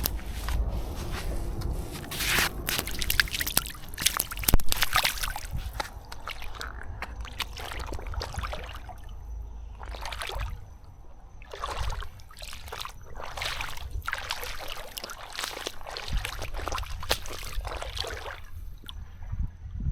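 Water sloshing and trickling in irregular bursts, with scattered knocks and rustles.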